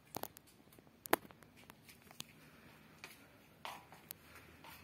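Faint scattered clicks and taps, the sharpest about a second in, with a brief rustle near the end: quiet handling noise as the fabric curtain is approached and touched.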